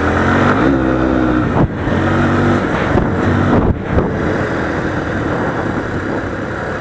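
Motorcycle engine running while riding, its note rising and falling, with two short breaks in it about two and four seconds in, then running on more steadily.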